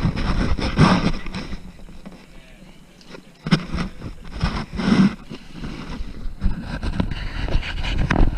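Wind rumbling on the microphone aboard a moving boat, with a few short bursts of voices; the wind rumble drops away for a moment near the middle, then returns.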